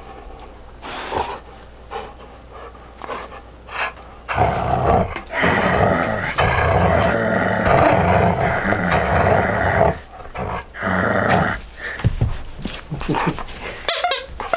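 A dog growling in play as it tugs on a rope toy, in short bursts at first, then one long loud growl from about four seconds in until about ten seconds, and a shorter one just after.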